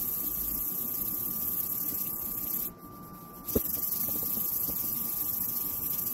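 Dry hand-sanding of a plastic headlight lens with a round disc of fine-grit sandpaper: a steady scratchy hiss of paper rubbing on the lens, which stops for under a second about three seconds in and starts again with a single click. The lens surface is nearly smooth, its rough oxidised layer sanded away.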